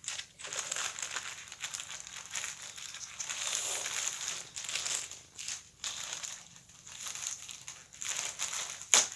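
Packaging crinkling and crumpling in hands as a parcel is opened, in irregular bursts, with one sharp snap near the end.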